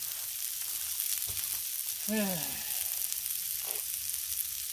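Balls of ground beef mixed with breadcrumbs sizzling on a hot Blackstone flat-top griddle, a steady high hiss.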